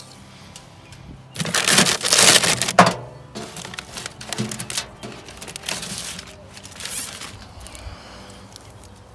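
Plastic bird netting and apple-tree leaves rustling and crackling as the net is handled and wrapped around a branch. There is a loud rustle with a quick run of crackles from about a second and a half in, then softer, irregular crackling.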